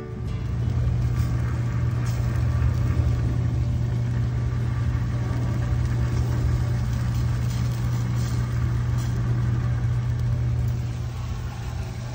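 A steady low mechanical hum of a running motor, with a hiss over it; it gets a little quieter near the end.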